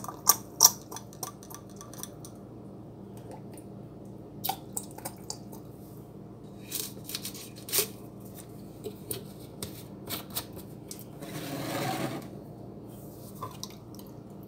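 Light plastic clicks and taps as a pipette, sprayer bottle and caps are handled on a countertop while a liquid plant product is measured in, with a short rushing noise lasting about a second near the end.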